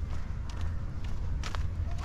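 Footsteps of a person walking at an even pace, about two steps a second, over a steady low rumble.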